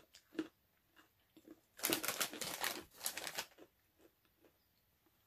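Dry crackling from a packet of hard seasoned pretzel pieces being handled and bitten: a dense burst of crackles about two seconds in, lasting about a second and a half, with scattered faint clicks around it.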